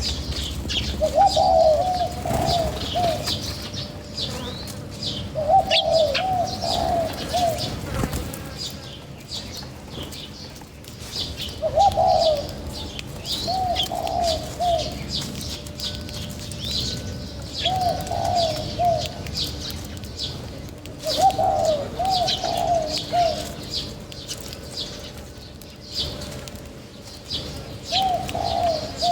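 Pigeons cooing in short phrases of a few notes, repeated every few seconds, over steady high chirping from many small birds.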